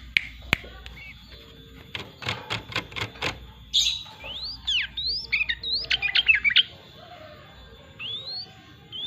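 Yellow-vented bulbul (trucuk) singing energetically: short rising whistled notes and quick falling sweeps, with a burst of fast chattering notes about five to six seconds in. A run of sharp clicks comes about two to three seconds in.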